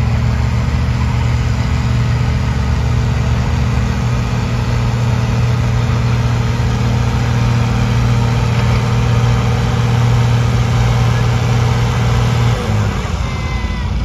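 Vintage John Deere tractor engine running hard under load, pulling a weight-transfer sled, its note steady. Near the end the engine's pitch drops and the sound eases off.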